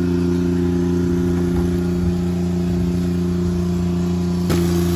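An engine running steadily at a constant speed, with a brief click near the end.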